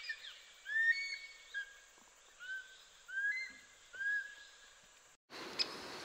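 A bird calling: a series of whistled notes that rise and then level off, about one a second, with fainter high chirps from other birds. The calls stop about four seconds in, and near the end the sound cuts to a steady hiss with two faint ticks.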